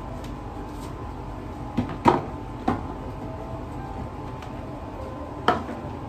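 Four hard plastic knocks and clacks, the loudest about two seconds in: plastic pet food and water dispensers being set down and handled on a tiled floor. A steady background hum runs underneath.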